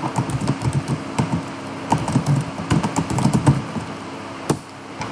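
Typing on a computer keyboard: a quick run of key clicks for about three and a half seconds, then one separate click near the end.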